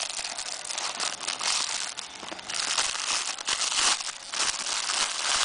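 Cardboard box being opened, then a thin clear plastic bag crinkling and rustling in the hands as the lens hood inside it is handled, busiest from about halfway through.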